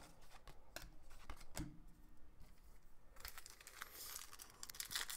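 Faint crinkling of a hockey card pack wrapper being handled, starting about three seconds in, after a few light taps.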